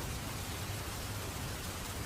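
Steady rain falling, an even hiss with no distinct drops or thunderclaps standing out.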